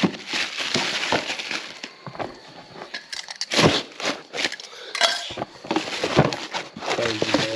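Irregular metallic clinks and knocks mixed with rustling, as small metal parts and packaging are handled.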